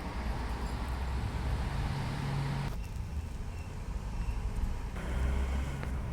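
Film soundtrack played through the projector's built-in speaker: a low, rumbling background like passing traffic, changing abruptly about three seconds in and again about five seconds in.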